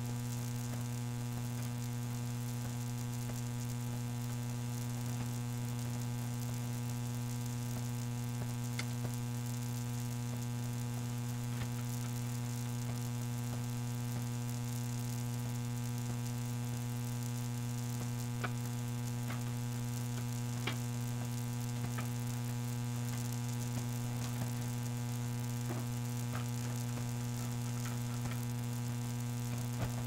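Steady electrical hum with a faint hiss. A few faint small clicks come through it, from the screwdriver working screws into the metal drive caddy.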